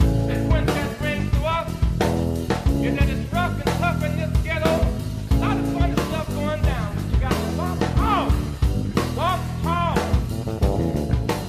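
Outro music: a song with a singing voice over guitar and a steady drum beat.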